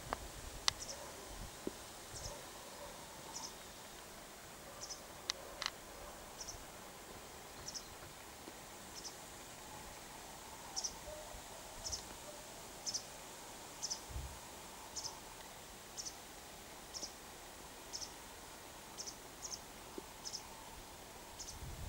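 Wagtails calling: short, high, thin calls repeated about once a second over a faint steady outdoor background, with a few sharp clicks in the first six seconds.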